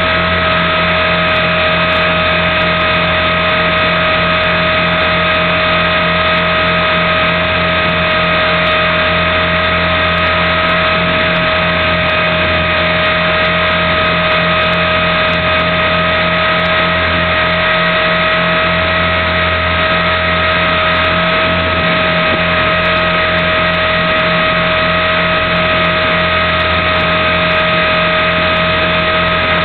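Align T-Rex 450 Pro electric RC helicopter running: a steady, unchanging whine from its brushless motor, gears and spinning rotors.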